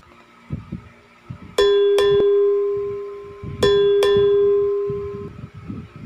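A bell chime sound effect struck twice, about two seconds apart, each strike ringing on as one clear tone and fading away. It is the ding that goes with a subscribe-reminder bell.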